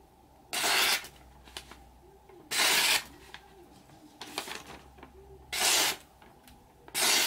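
A Saji VG10 Damascus gyuto chef's knife slicing through a sheet of newspaper held in the air. There are four quick cuts, each about half a second long and spaced a couple of seconds apart, with softer paper rustles between them: a paper-slicing sharpness test.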